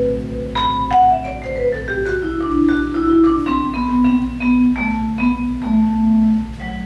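Vibraphone played with mallets: a long descending run of struck, ringing notes, over a held keyboard chord that fades about two seconds in.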